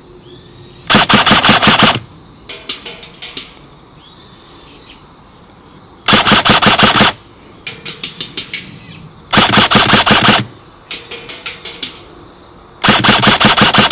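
Airsoft gun firing full-auto in four bursts of about a second each, each burst a rapid string of sharp shots. After each burst comes a fainter string of quick clicks.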